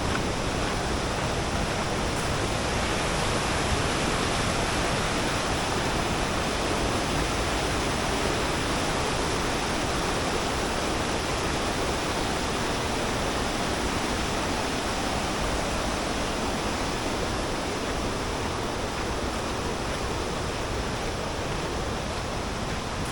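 Steady rush of falling water from the YS Falls cascades, an even wash of noise that eases slightly near the end.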